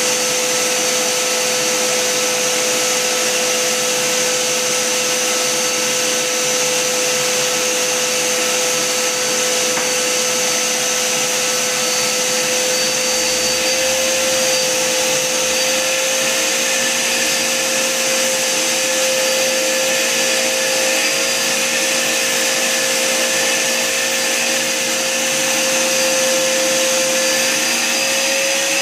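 Vacuum cleaner running steadily with its hose drawing long hair into the nozzle: a constant motor whine over a rush of air, the whine creeping slightly higher in pitch.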